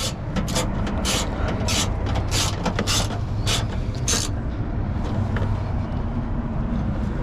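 A T24 Torx bolt being tightened with a hand ratchet: a short rasp of clicks on each back-swing, about seven strokes in quick succession, stopping a little past halfway. A steady low hum runs underneath.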